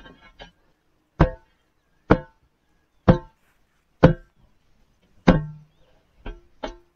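Spade with a new wooden handle being struck head-down against a block to drive its metal socket tight onto the handle: five loud ringing metal knocks about a second apart, with a few lighter knocks near the start and near the end.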